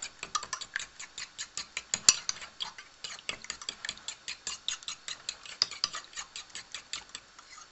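Metal spoon beating an egg mixture in a ceramic mug, clinking against the mug's wall in a quick, even run of light ticks, several a second, with one sharper knock about two seconds in.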